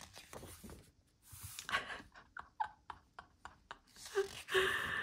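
Pages of a thick-paged photobook being turned and handled: a paper swish followed by small crackles and taps of the pages. A breathy gasp comes near the end.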